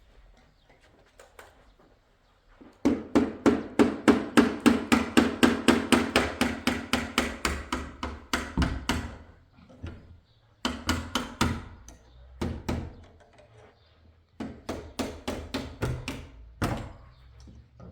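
Hammer blows on a wooden door, in a fast even run of about five a second lasting some six seconds, then three shorter bursts of blows.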